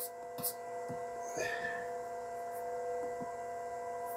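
Steady electrical hum made of several steady tones, with a few soft clicks from the buttons of a PowerFlex 70 drive's keypad as a number is keyed in, two of them close together near the start.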